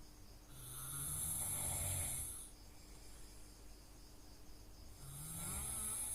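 Someone snoring slowly: one long snore starting about half a second in and lasting about two seconds, and the next one beginning near the end.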